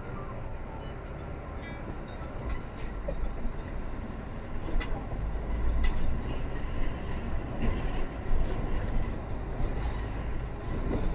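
Inside a Mercedes-Benz Citaro C2 city bus under way: steady engine and road rumble that grows louder over the first few seconds as the bus picks up speed, with a few light knocks from the body.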